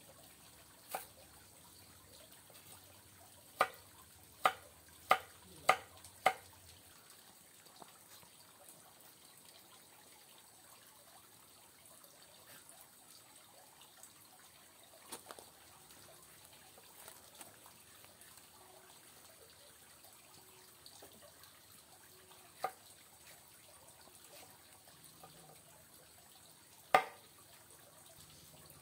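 Sharp knocks over a faint steady hiss: a run of five about half a second apart a few seconds in, then single knocks later, the loudest near the end.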